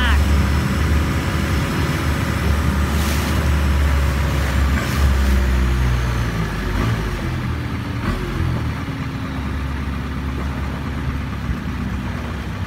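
Engine of a Thai longtail boat running steadily under way, a loud low hum, getting a little quieter in the second half.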